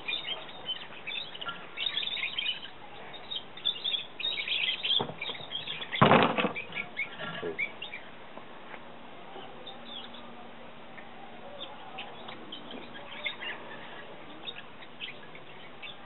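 Small birds chirping on and off, with one loud short knock about six seconds in as the spring-loaded steel rod of a homemade olive pitter is pressed down to force a pit out through the hole in its iron base.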